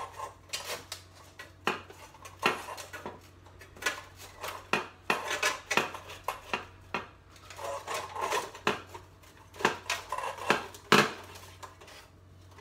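Irregular metallic clanks, clicks and rattles as a replacement hotplate is fitted into an electric cooktop's sheet-steel frame, with one sharper knock near the end.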